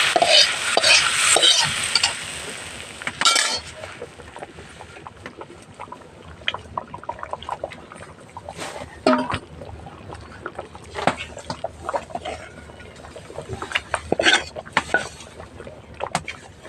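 A spoon stirring and scraping in a cooking pot, with scattered clinks of metal. A hiss in the first few seconds dies away.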